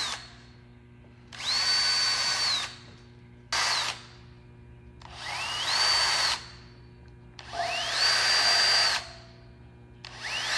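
Electric drill boring 7/32-inch pilot holes for a 1/4-20 tap, run in short bursts of a second or so. Each burst speeds up to a steady high whine and then stops. There are four bursts and one brief blip.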